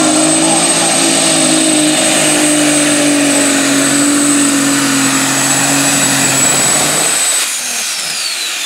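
Light Super Stock pulling tractor's turbocharged engine running flat out under load while dragging the sled, with a steady high whine over it. About seven seconds in, the throttle comes off: the engine note drops away and the high whine falls steadily in pitch.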